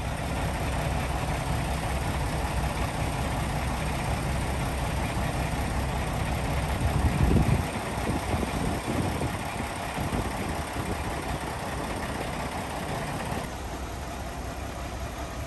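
Heavy diesel truck engine running steadily as the crane works, with a brief louder swell about seven seconds in.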